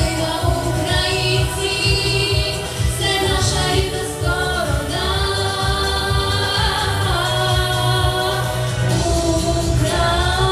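A woman singing a song, holding long wavering notes, over music with a steady low beat.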